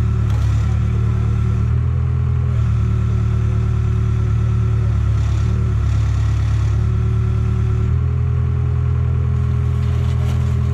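An engine running steadily, its pitch stepping up and down several times, with a few clattering knocks near the end.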